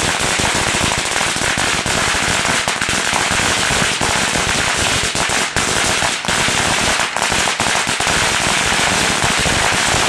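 A long string of firecrackers going off in a rapid, continuous crackle of bangs that runs without a break.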